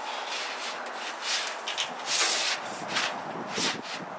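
A long soffit panel rubbing and scraping as it is pushed along the J-strip trim under the eave, in a series of short scrapes, the loudest about two seconds in.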